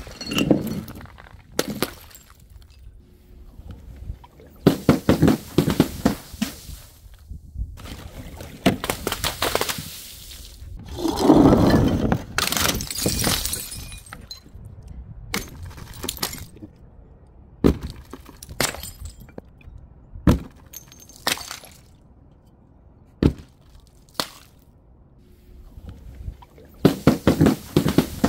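Glass bottles shattering in several bursts, with shards clinking and crackling. The loudest crash, with a heavy low thud, comes about eleven seconds in, and single sharp clinks of glass are scattered through the middle.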